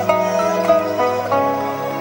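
Background music: plucked string notes, zither-like, struck several times over held tones.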